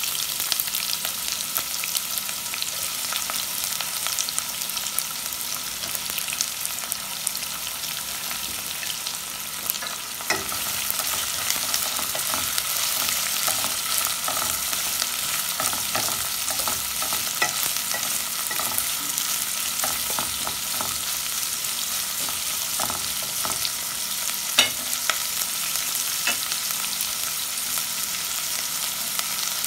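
Sliced onions sizzling in oil in a ceramic-lined pot, a steady frying hiss. From about ten seconds in, a wooden spatula stirs them, scraping and knocking against the pot.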